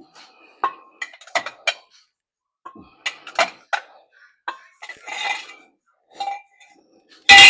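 Steel hand tools and sockets clinking against metal, a string of separate sharp clinks with a short ringing stretch midway. A loud ringing metal clank comes right at the end.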